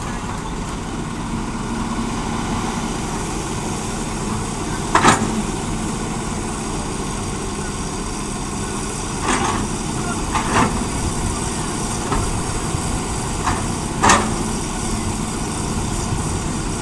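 Diesel engines of heavy earthmoving machinery, an excavator and dump trucks, running steadily with a low hum. A handful of short knocks and thuds cut through, the loudest about five seconds in and a cluster later on, typical of an excavator bucket at work and soil landing in a truck bed.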